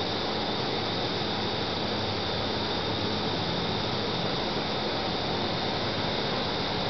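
Steady rushing of an air blower running, with a thin high whine and a low hum under it, unchanging in level.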